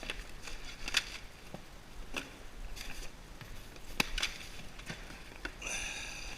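Hard items of electronic scrap being handled and set down: a few sharp knocks and clacks, roughly a second apart, with a short scraping sound near the end.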